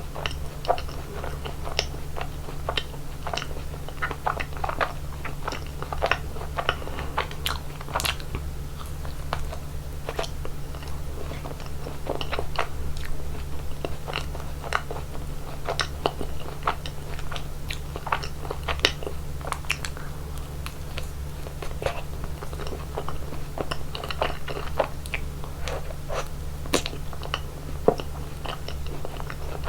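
A person biting into and chewing chocolate ice cream, with frequent short sharp crunches and clicks throughout. A steady low hum runs underneath.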